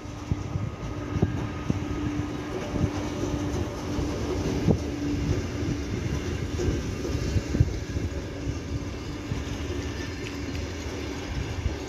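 VR Sr1 electric locomotive and its double-deck night-train coaches passing close by: a steady rumble of wheels on rail with irregular knocks as the wheels cross rail joints. A steady hum is heard in the first half.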